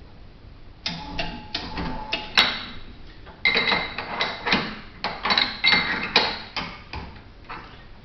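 Runs of quick metallic clicks and clinks, some ringing, as a nut on a caravan power mover is tightened, with a short pause partway through.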